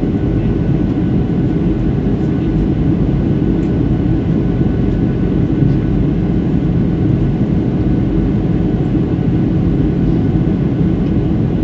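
Steady jet airliner cabin noise on the landing approach: engine and airflow rumble heard from inside the cabin, with a faint high steady whine above it.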